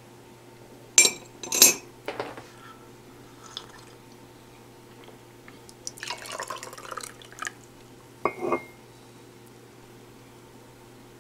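Porcelain mug clinking: two sharp clinks about a second in, a stretch of light clattering around six to seven seconds, and another clink near eight and a half seconds.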